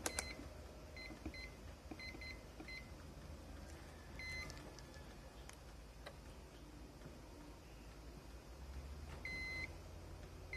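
A digital multimeter's beeper sounding as its test probes touch points on an iPhone 5s logic board: a quick string of short beeps in the first few seconds, another about four seconds in, and a longer beep near the end. A sharp click at the very start is the loudest sound, and a low hum runs underneath.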